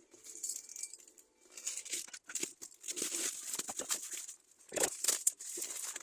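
Irregular handling sounds, quick clicks, scrapes and rustles of plastic, as a hair dryer is handled before being taken apart.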